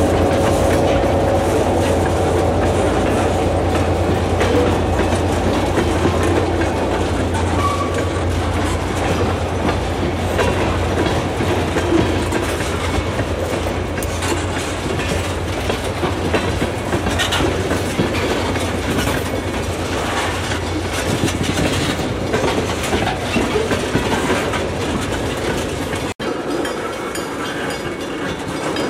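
A string of freight tank cars rolling slowly past, wheels clicking over the rail joints over a steady low rumble. Near the end the sound cuts out for an instant and comes back lighter.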